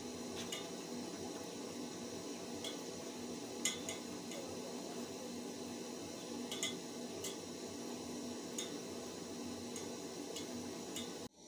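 A wire whisk stirring porridge in a metal pot, with sharp clicks now and then as it knocks against the pot, over a steady low background noise.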